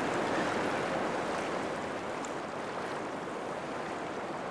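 Fast freestone river rushing steadily over rocks, dropping slightly in level about two seconds in.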